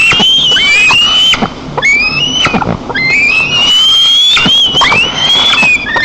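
Juvenile white-tailed eagle calling loudly and insistently: about five high, piercing whistled cries in quick succession, each rising in pitch and then held, typical of a fledgling's food-begging.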